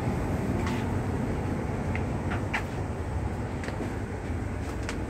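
Steady low rumble of background noise in a narrow metal compartment, with a handful of faint light clicks scattered through it.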